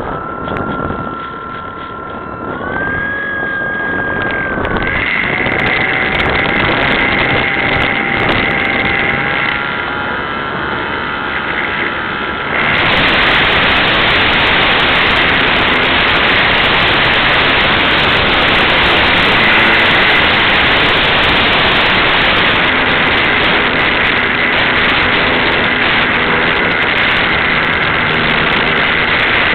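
Electric motor of a radio-controlled model plane whining, its pitch rising and falling as the throttle changes. About thirteen seconds in, a loud steady rushing noise sets in and covers most of it, with a thin whine still faintly under it.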